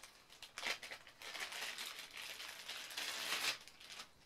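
Thin plastic packaging bag crinkling in the hands as a power cable is pulled out of it. It starts about half a second in and stops shortly before the end.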